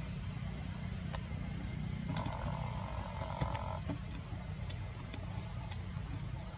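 A macaque gives one drawn-out call of under two seconds, about two seconds in, over a steady low rumble, with a few faint clicks.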